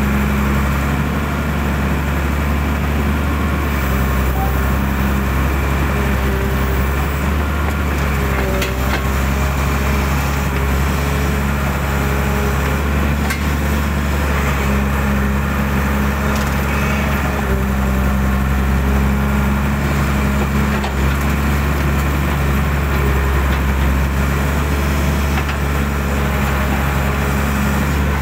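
Hydraulic excavator's diesel engine running steadily under working load, with a few brief sharp knocks or cracks as it digs and works.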